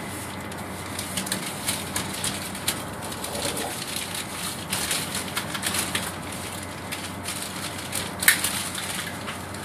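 Steady running noise inside a high-speed train carriage, overlaid with irregular crackling and rustling clicks, the sharpest one about eight seconds in.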